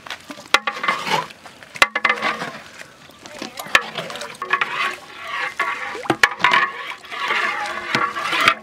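Long metal paddle stirring beaten egg mixture in a large aluminium pot: liquid sloshing, with several sharp, irregular knocks.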